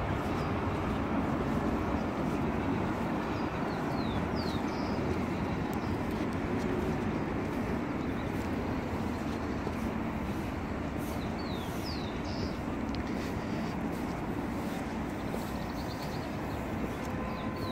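Steady rumble of city traffic heard from a hillside, with a few short, high, falling chirps of a bird now and then.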